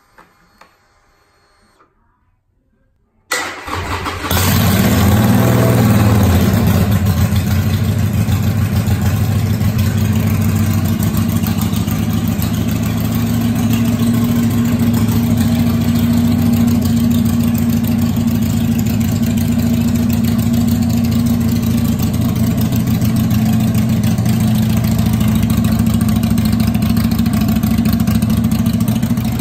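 2014 Harley-Davidson Sportster Iron 883's air-cooled 883 cc V-twin being started: a faint whir with the ignition on, a short crank on the electric starter about three seconds in, then the engine catches. It revs up briefly and settles into a steady idle.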